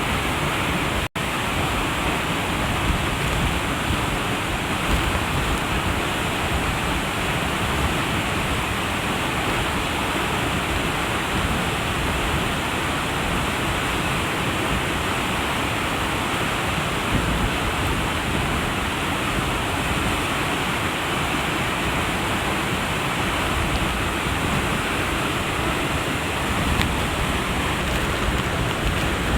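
Waterfall's water rushing steadily. The sound cuts out for a split second about a second in.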